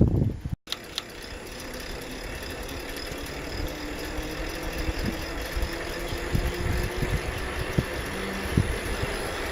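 A motor vehicle's engine running steadily, slowly growing louder, after a brief dropout about half a second in.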